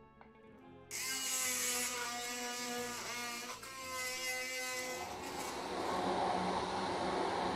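Hand-held immersion (stick) blender switched on about a second in, its small electric motor running as the blade purees raw potato chunks in water in a plastic beaker. The sound grows rougher and noisier from about five seconds in as the potato breaks down.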